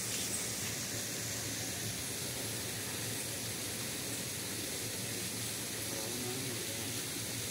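Steady outdoor background hiss, even and unchanging, with no distinct events.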